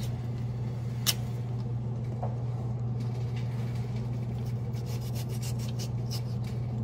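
A red potato being cut in half by hand with a kitchen knife over a steady low hum, with one sharp click about a second in.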